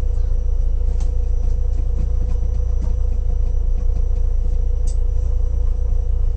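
Mitsubishi Lancer Evolution VII's turbocharged four-cylinder engine idling steadily, heard from inside the cabin as a deep, even rumble.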